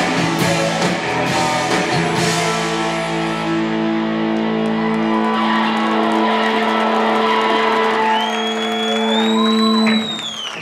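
Live rock band with electric guitars ending a song: drum hits stop a couple of seconds in and the guitars hold a final chord that rings on. Near the end a high whining tone bends up and down over the chord, and the band cuts off suddenly just before the end.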